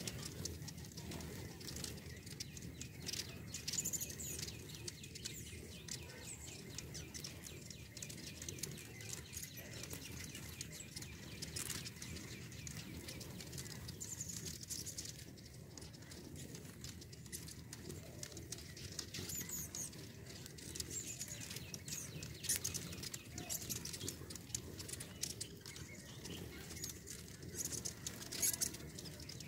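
Many hummingbirds swarming and chasing each other: a steady hum of wings, with frequent short, high-pitched chips and squeaks throughout.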